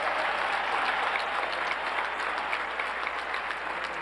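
Large stadium crowd applauding. The applause swells just as it begins, then holds steady, with single nearby claps standing out.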